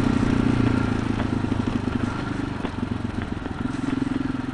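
Motorcycle engine running at low, steady speed on a dirt track, with a few faint knocks; the engine note eases off a little in the middle and picks up again near the end as the throttle opens.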